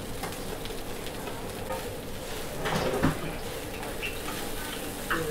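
Fried rice with butter, garlic and shrimp sizzling in a hot pan while it is stirred, with a louder knock near three seconds in.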